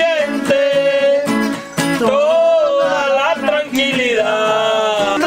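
A song with a singer and acoustic guitar, the voice holding long notes with vibrato over plucked guitar.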